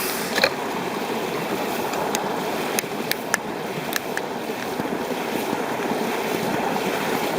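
Mountain stream water rushing steadily, with a few short sharp clicks scattered over it.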